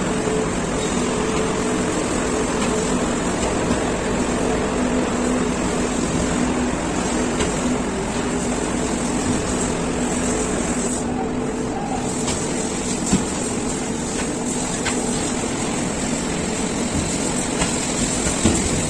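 Cement-bag belt conveyor and loading-plant machinery running with a steady hum, with a few sharp knocks as bags come off the chute, one about two-thirds of the way through and a couple near the end.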